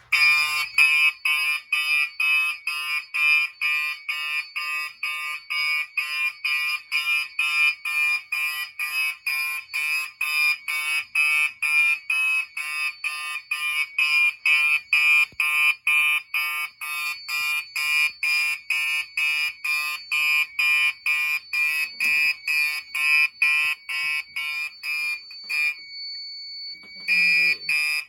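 A 1986 first-generation Gentex SHG fire alarm horn sounds in rapid, even march-time pulses, its horn partly covered with tape. Near the end the pulsing breaks off for about a second and a half, leaving only a faint steady tone, then starts again.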